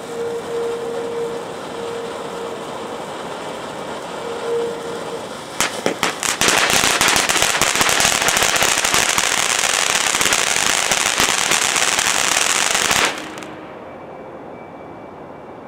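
Phantom Fireworks Golden Pine Forest fountain firework spraying sparks with a steady hiss. A few sharp pops come about five and a half seconds in, followed by a louder, dense crackling spray that stops abruptly about thirteen seconds in as the fountain burns out.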